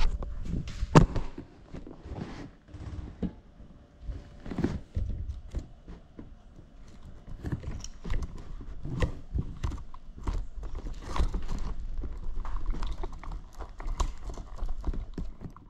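Handling noise on an action camera's own microphone: irregular knocks, bumps and scuffs as the camera is moved about and rubbed against things, over a low rumble.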